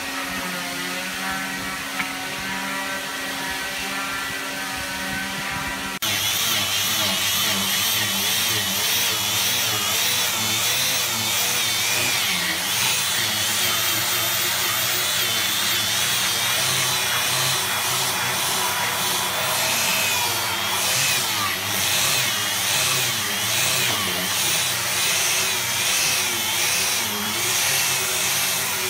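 Electric angle grinder with a sanding disc running against a wooden door panel, its whine wavering up and down as the disc is pressed and swept over the wood. For about the first six seconds a quieter, steady machine hum is heard instead, and it changes abruptly to the louder grinder.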